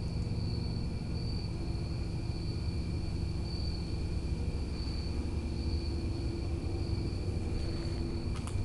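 Steady, turbine-like droning noise of unidentified origin: a constant low hum underneath, with a thin high tone on top that swells and fades in a slow, even rhythm about once a second.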